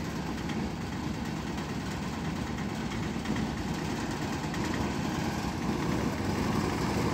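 Piaggio Ape Xtra LD autorickshaw's single-cylinder diesel engine idling steadily.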